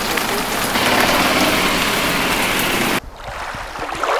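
Rain falling on wet pavement and a truck, a steady, even hiss that cuts off suddenly about three seconds in, leaving a much quieter outdoor ambience.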